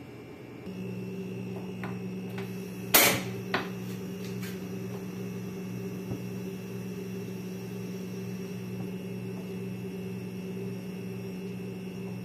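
An electric kitchen appliance is switched on under a steel pot of water set to boil, and a steady hum starts about a second in. There is a sharp knock about three seconds in, a smaller one just after, and a few faint ticks.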